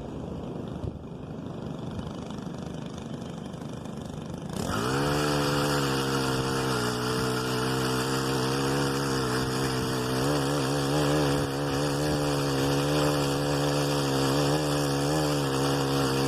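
Telescoping pole saw running: about four and a half seconds in it spins up quickly to full speed and holds a steady high pitch. The pitch wavers in the second half.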